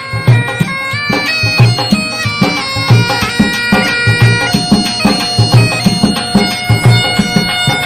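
Background music: a reedy wind instrument plays a melody of held notes over a steady drum beat.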